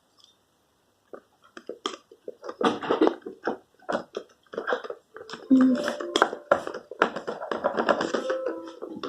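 Music: quick clicking and tapping sounds start about a second and a half in, and a held stepwise melody joins them about five seconds in.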